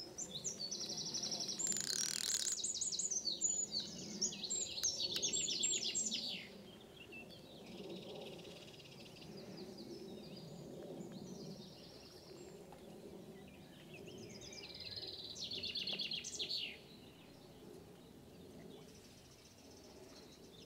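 Small songbirds singing in fast trilling, chattering phrases, busiest for the first six seconds and again in two shorter bursts later on, over a faint steady low background hum.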